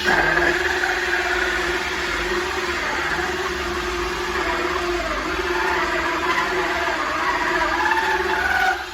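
Power drill running a 2-inch hole saw, cutting steadily into a solid sliding closet door, with a steady motor whine over the grinding of the cut. It stops shortly before the end, with the hole about halfway deep.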